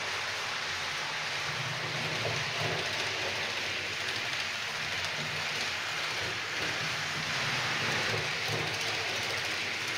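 H0-scale model freight train, a model Vectron electric locomotive hauling tank wagons, running fast over the layout's track: a steady rattling hiss of metal wheels on rail with a low motor hum underneath.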